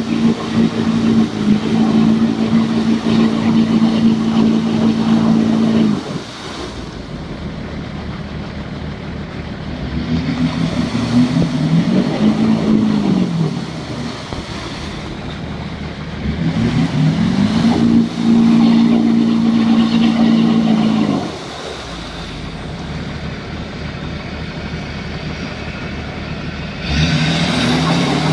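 Hummer H2's V8 engine revved hard in repeated bursts, dropping back to idle between them, as its wheels spin and churn through deep mud and water without getting free. It is held high for about six seconds at first, then swells and falls twice more, and climbs again near the end.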